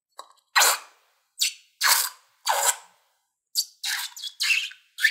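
Thick slime squirting out of the neck of a squeezed balloon in short wet squelches, about eight of them with silent gaps between.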